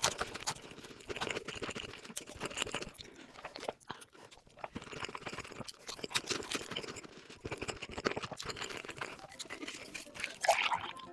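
Close-miked chewing and crunching of food, a dense irregular run of crisp crunches, with a louder burst near the end.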